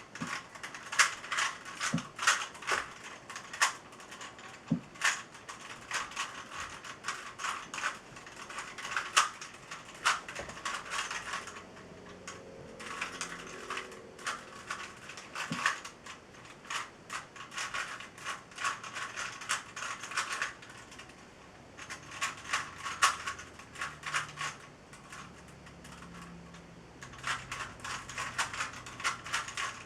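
Rubik's Cube faces being turned rapidly by hand, plastic clicking and clattering in quick runs. There are short pauses a little before halfway, and twice more in the second half. These are the sounds of a timed solve under way.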